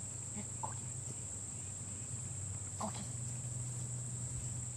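Steady high chirring of crickets, with two short clucks from chickens, about half a second in and again near three seconds.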